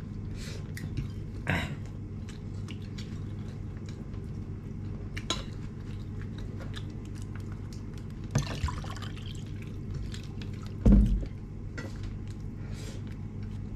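Someone eating a meal: scattered small clicks and knocks of utensils and chewing over a steady low hum, with one louder thump about eleven seconds in.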